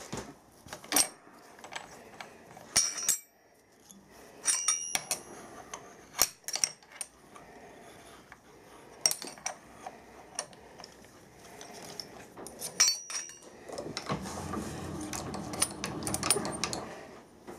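Scattered metallic clinks and taps as a spanner and hands work a machined metal pin loose in a milling-machine collet block. A longer rubbing scrape comes near the end as the pin is drawn out.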